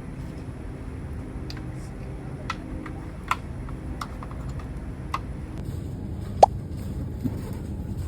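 Steady low hum of a supermarket with scattered light clicks and taps, the loudest a sharp click about six seconds in.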